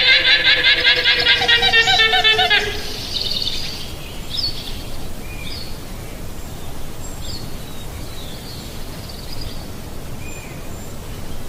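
Llama giving a loud, high, rapidly pulsing call for about two and a half seconds, then outdoor background with small birds chirping now and then.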